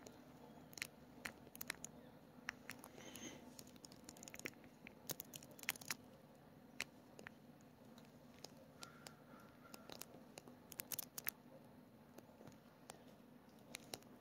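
Near silence in the woods, broken by faint, irregular clicks and rustles, with a brief faint tone about nine seconds in.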